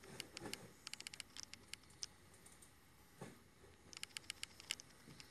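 Faint, quick clicking from operating a computer's input controls while searching recorded CCTV footage. The clicks come in a run over the first two seconds and again around four seconds in, with a soft thud just after three seconds.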